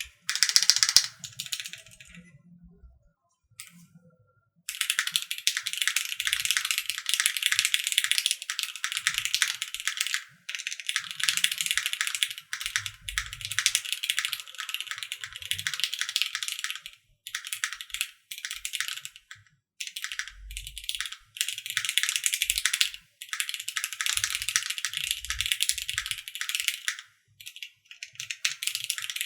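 Typing on a modded Keychron Q1 v1 mechanical keyboard with Cherry MX Black Hyperglide linear switches: a fast, continuous stream of key clacks. About two seconds in, the typing stops for roughly two seconds, then runs on with only a few brief breaks.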